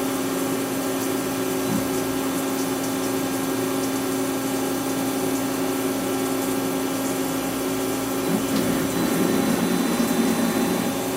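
CNC lathe running with a steady machine hum as a cutter faces the end of a small turned part; the sound swells a little over the last few seconds.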